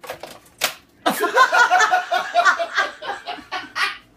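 A few sharp knocks in the first second, then a person laughing hard in short repeated bursts.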